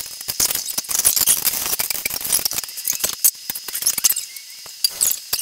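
Ice cubes clattering and clinking as they are dropped into two stemless glasses: a quick, irregular run of sharp clicks and rattles.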